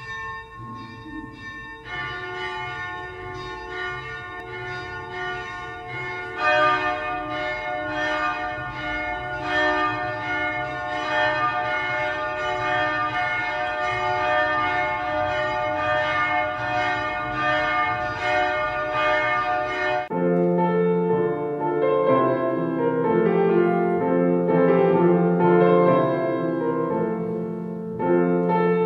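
Church bells ringing, their strokes overlapping and sustained, a second bell joining in a few seconds in. About twenty seconds in the bells cut off abruptly and music takes over.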